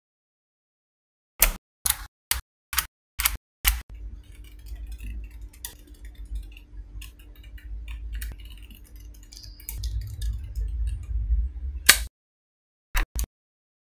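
Small neodymium magnetic balls clicking sharply as they snap together, about six separate clicks, then a long stretch of low handling rumble with faint scattered ticks as a chain of balls is laid down onto the ball grid and pressed in. A loud click near the end, then two more clicks.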